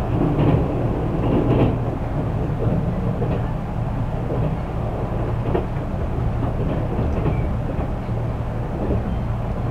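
Inside a 183 series electric multiple unit car running at speed: a steady rumble of wheels on rail with a few clacks from rail joints, a little louder in the first two seconds.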